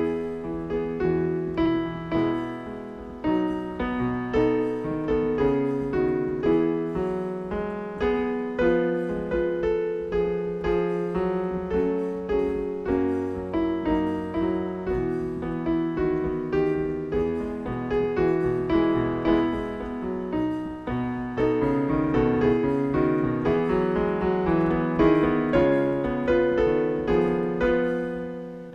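Piano music: a continuous piece played with many overlapping, sustained notes.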